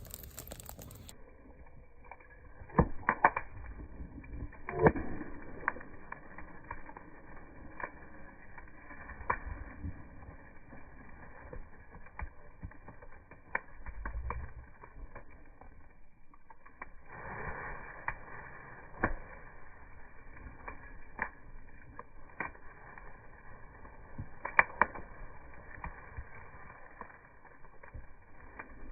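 Wood campfire crackling, with scattered sharp pops from the burning wood, heard in slowed-down slow-motion playback that makes it sound low and dull after about the first second.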